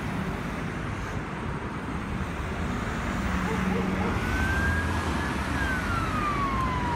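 Road traffic running by, then about four seconds in an ambulance siren starts, wailing in slow rising and falling sweeps and getting a little louder.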